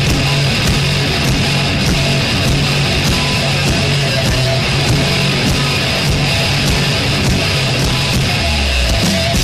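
Loud hard rock music with guitar, in a heavy metal style, playing steadily.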